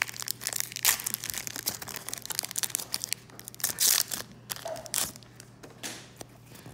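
Foil wrapper of a Pokémon trading card booster pack being torn open and crinkled, a dense crackling with louder bursts about a second in and around four seconds in, quieter near the end as the cards are slid out.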